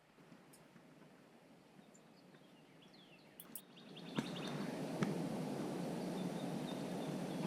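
Faint outdoor ambience with a quick run of small bird chirps, falling in pitch, about three seconds in. Halfway through, a louder, even background noise comes in and holds steady.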